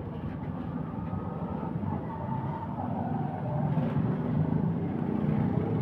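Steady low rumble of motor vehicles running nearby, with no tool strikes standing out.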